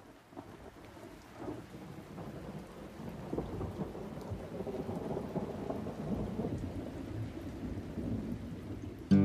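Low rumbling, rushing background noise of an aquarium hall, swelling steadily louder. Guitar music starts at the very end.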